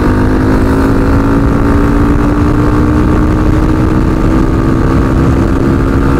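Honda motorcycle engine running under throttle as the bike accelerates on the highway, its pitch slowly rising, with heavy low wind rumble on the rider's microphone.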